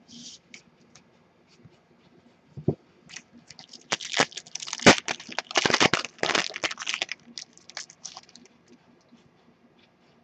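A foil trading-card pack, a 2013 Topps Strata football pack, torn open by hand, the wrapper crinkling and crackling in a dense burst of about three seconds starting about four seconds in, with a few light handling clicks before and after.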